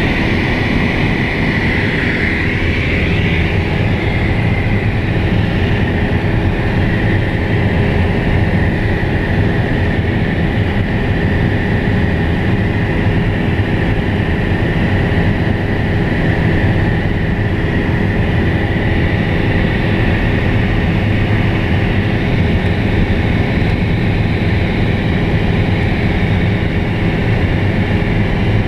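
Steady, loud drone of a light single-engine propeller plane's engine and propeller, heard from inside the cockpit in level flight.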